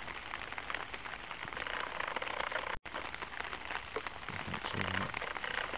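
Light rain pattering in an even hiss of fine drops. The sound cuts out for an instant about three seconds in.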